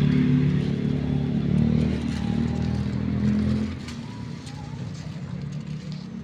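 A motor vehicle engine running steadily with a low, even hum. It is loud for the first three and a half seconds, then continues more quietly.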